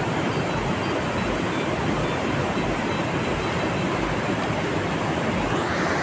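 Fast mountain river rushing over a rocky bed, a steady noise of water.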